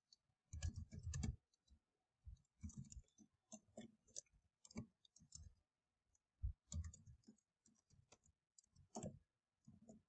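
Faint keystrokes on a computer keyboard, typed in short bursts with brief pauses between them.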